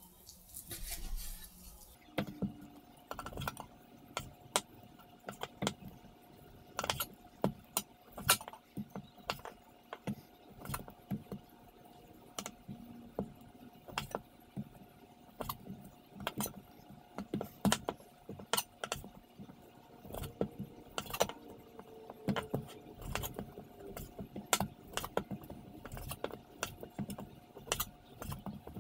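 Kitchen knife knocking and tapping on a plastic cutting board while beef roast is cut into chunks: irregular sharp clicks, about one or two a second, over a faint steady hum.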